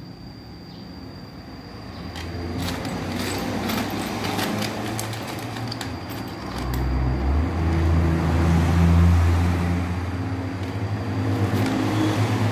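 A motor vehicle engine running, growing louder from about two seconds in and loudest through the second half. Light clinks of small metal carburettor parts being handled in a plastic box come through it.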